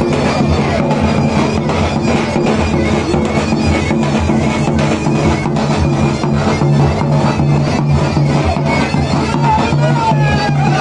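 Davul and zurna playing a horon dance tune: the shrill, reedy zurna melody over the regular beat of the large davul bass drum.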